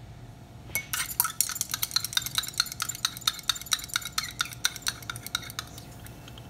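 A glass stirring rod clinks rapidly against the inside of a glass beaker as a dark sludge sample is stirred by hand, several light ringing taps a second. It starts about a second in and stops about a second before the end.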